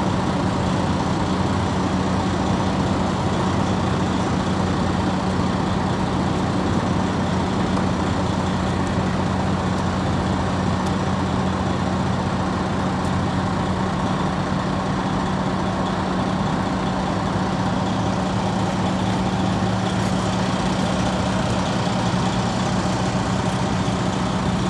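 An engine idling steadily, with a low, even hum that does not change in pitch.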